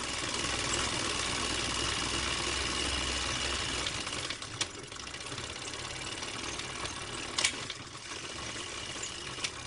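Film projector running, a steady mechanical whir with hiss and a low hum, with sharp clicks about halfway through, near the three-quarter mark and just before the end.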